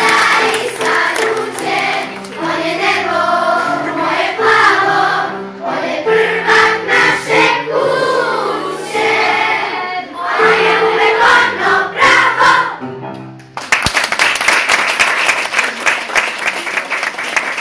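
Children's choir singing a song. It ends about thirteen and a half seconds in, and the audience breaks into applause.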